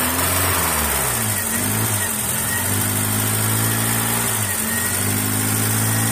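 Car engine idling after a cold start, its speed rising and dipping several times before settling briefly and dipping again.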